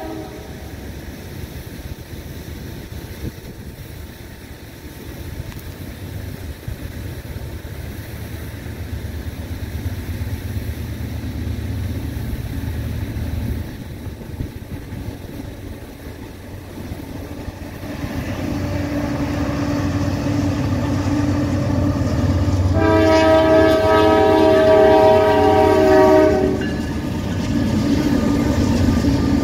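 Norfolk Southern freight train's diesel locomotives approaching, a low engine rumble building steadily louder. About 23 seconds in the locomotive's air horn sounds a loud multi-note chord for a few seconds, then the engines keep running close by.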